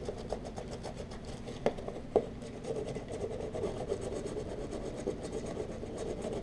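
Scratch-off card being scraped inside a cardboard box: a steady, rasping, scratchy rubbing, with two sharp knocks about two seconds in.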